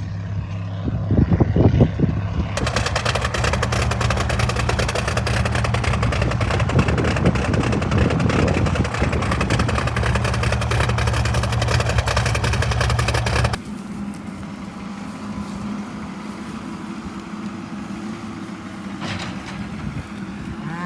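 A vehicle engine running steadily. About two and a half seconds in, the sound changes abruptly and gains a hiss. About thirteen and a half seconds in it drops suddenly to a quieter engine hum.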